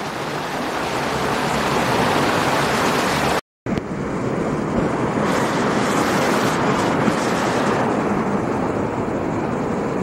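Rushing water of a rocky stream tumbling over small rapids, a steady loud hiss. It drops out for a moment about three and a half seconds in, then carries on.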